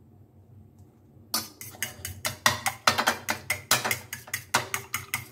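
Fork beating a raw egg in a ceramic bowl: rapid clinking of the fork against the bowl, several strikes a second, starting a little over a second in.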